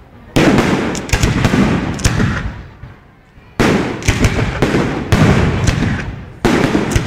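Aerial firework shells bursting: three loud bangs about three seconds apart, each followed by a quick run of sharper cracks and fading over a couple of seconds.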